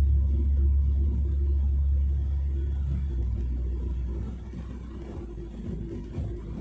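Low, steady road and engine rumble heard inside a moving car's cabin, growing quieter about four seconds in.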